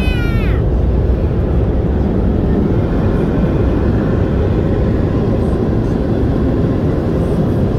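Automatic car wash equipment running, heard from inside the car's cabin as a loud, steady rushing noise.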